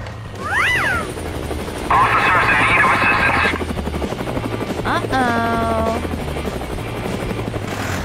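Dubbed heavy-truck engine sound effect, a low steady rumble, with short cartoon-style vocal effects over it: a rising-and-falling cry about half a second in, and a voice dropping and holding its note about five seconds in.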